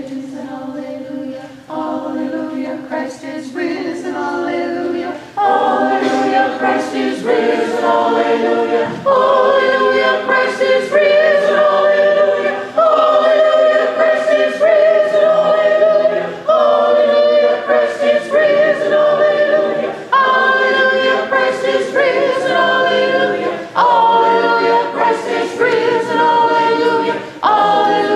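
Choir singing a hymn in several-part chords, each chord held a second or two, growing louder about five seconds in.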